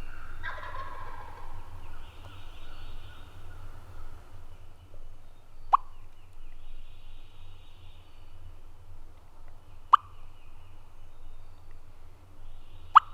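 Wild turkey gobble: a rapid, falling rattle about half a second in. It is followed by a few sharp single clucks spaced several seconds apart.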